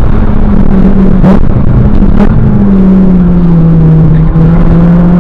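Car engine running hard under load, heard from inside the cabin of a track car; the engine note holds steady, sags a little through the middle and rises again near the end. Two short sharp knocks come about a second apart, roughly a second into the sound.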